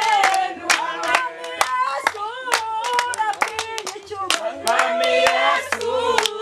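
A group of people singing together to rhythmic hand clapping, about three claps a second.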